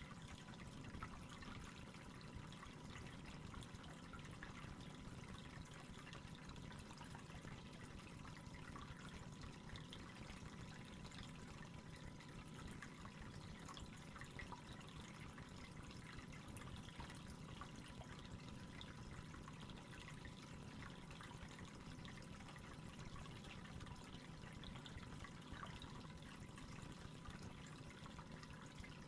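Aquarium water faintly trickling and dripping, steady throughout, with a thin steady high whine behind it.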